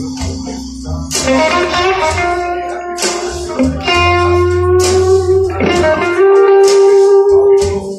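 Blues recording played over hi-fi speakers driven by a Solaja Audio single-ended amplifier and picked up in the room by a phone. A guitar strikes sustained notes about once a second over a steady bass line.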